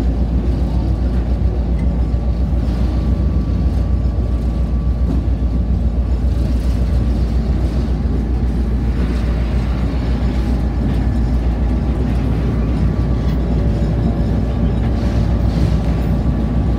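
Diesel locomotive under way, a steady low rumble of its engine and wheels on the rails, with a faint steady whine above it, heard close up from the open walkway beside the engine hood.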